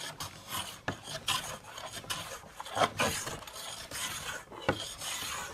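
Hand plane cutting across a wooden slab tabletop: repeated rasping strokes as the blade shaves the wood, about one stroke a second, with sharp clicks between them.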